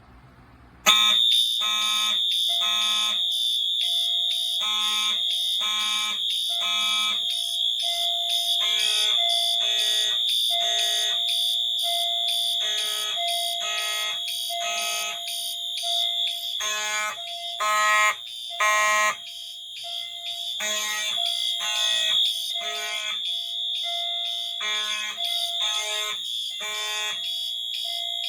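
Fire alarm system in alarm from a smoke detector activation: Simplex and Wheelock horns sound the temporal-3 pattern of three blasts, a pause, then repeat, over a continuous high-pitched tone. The alarm starts about a second in.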